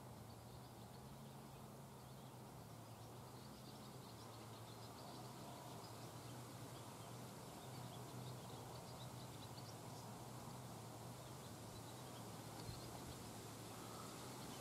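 Near silence: faint outdoor ambience with a low steady hum and scattered faint high chirping.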